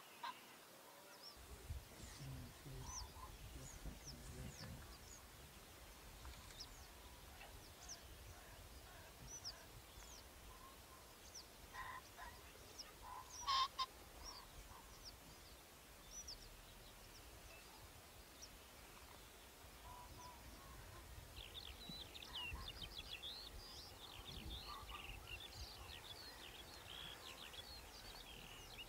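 Birds calling: scattered short chirps and whistles, one louder call about halfway through, and denser chirping near the end, over a faint low rumble.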